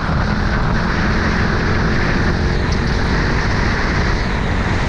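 Steady rushing wind on the microphone mixed with engine and road noise from a vehicle travelling along a road.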